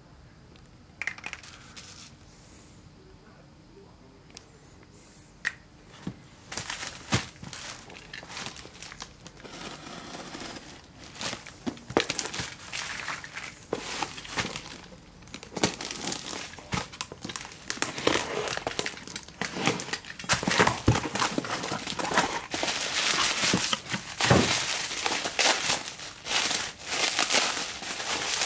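Bubble wrap and plastic packaging rustling and crinkling as it is handled by hand. A few light clicks in the first few seconds, then near-continuous crackling that gets louder through the second half.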